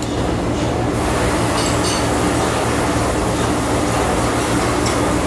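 Steady rumbling background noise with a low hum at a restaurant table, with a couple of light clinks, like chopsticks against a bowl, about two seconds in.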